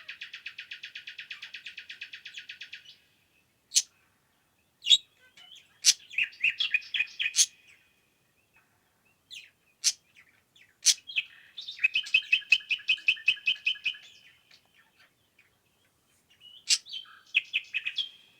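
Woodland songbird singing: four bursts of fast, trilled song, each a run of quickly repeated notes lasting one to three seconds, with loud sharp single notes in the gaps between them.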